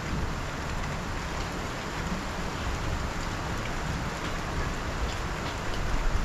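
Steady rain falling on roofs and ground, with scattered drop ticks and an irregular low rumble underneath.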